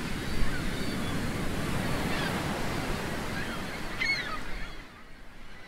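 Ocean surf washing in steadily, with a few short bird calls over it; the surf fades down near the end.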